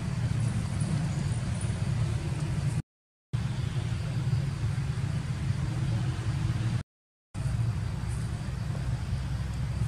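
Steady low rumble of outdoor background noise, with no distinct event in it. It cuts to dead silence twice for about half a second, at the joins between clips.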